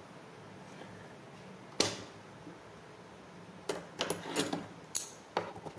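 Cloth and tools being handled on a sewing table. A single sharp click comes about two seconds in, then a run of small clicks and fabric rustles near the end.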